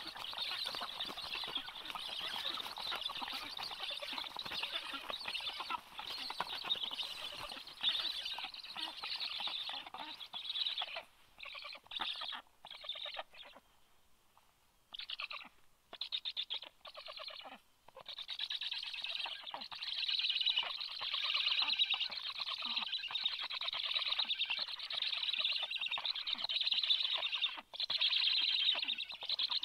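Black stork nestlings giving continuous food-begging calls, a dense, rapidly pulsed sound; about a third of the way in it breaks into short bursts with pauses, then resumes steadily.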